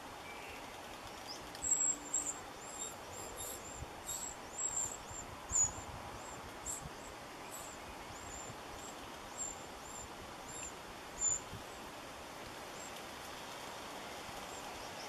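Wrens at a nest box giving a run of short, thin, very high chirps, two or three a second, that die away a little after ten seconds in.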